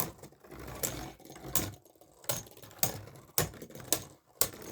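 Irregular sharp plastic clicks and clacks from Beyblade spinning tops, about two a second.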